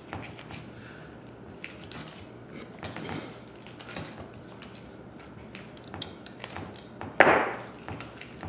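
Knife cutting meat away inside a bull's lower jaw: faint wet clicks and scrapes, with one louder rasping scrape about seven seconds in.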